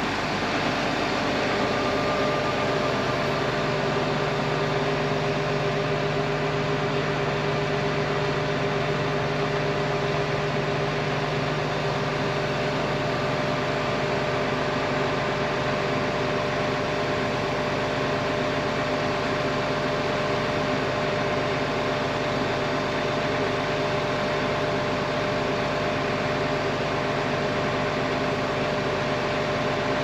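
Case IH 2388 combine's diesel engine idling steadily, a constant mechanical hum with several steady tones.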